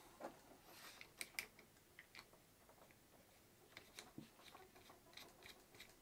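Faint, scattered small plastic clicks and rustles from an MC4 solar connector and its cable being handled and twisted in the hands.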